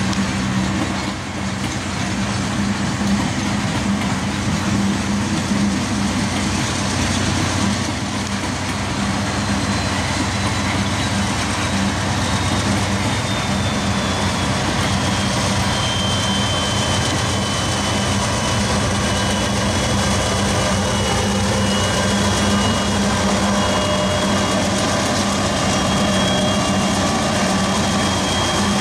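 Two Union Pacific diesel-electric locomotives, working as distributed power behind coal cars, pass close by with a steady engine drone and a thin high whine, along with the rolling of the train.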